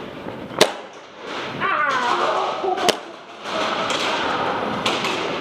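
Two sharp airsoft gun shots or BB hits, about two seconds apart, over steady background noise, with a raised voice between them.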